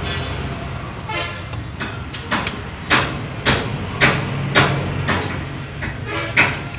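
Sharp metallic clicks and clinks, about eight of them, as pliers work a hose clamp off a pipe on a car radiator. A steady low hum runs underneath.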